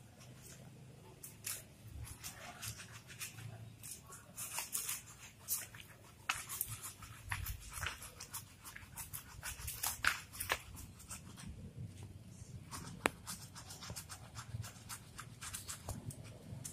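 A wet, soapy dog being scrubbed with a brush during a bath: irregular scratchy rubbing and clicks.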